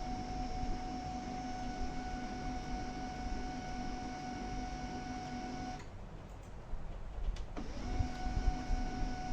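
Canon LBP3018B laser printer running just after being switched on, its motor giving a steady whine. The whine stops about six seconds in and starts again about two seconds later.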